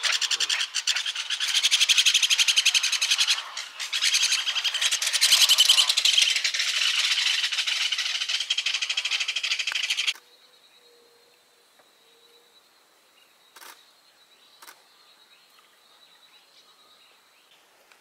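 A loud, dense chorus of bird calls, which cuts off suddenly about ten seconds in. What follows is near silence with a faint steady high tone and two soft clicks.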